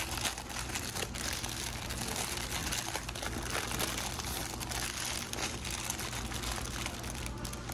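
Paper burger wrapper crinkling and rustling as hands unfold it to bare the burger, a continuous irregular crackle over a steady low hum.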